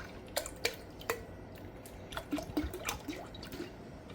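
Cow milk dripping and splashing into a metal cooking pot, with light irregular clinks of pot and spoon.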